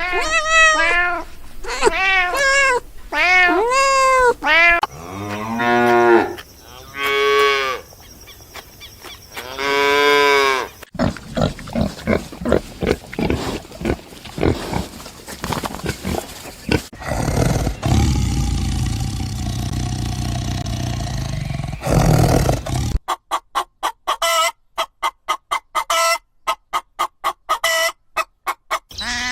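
Farm animal calls one after another. First a run of short rising-and-falling cries like a cat meowing, then longer low calls of cattle mooing, then noisy stretches, and near the end a fast series of short sharp calls.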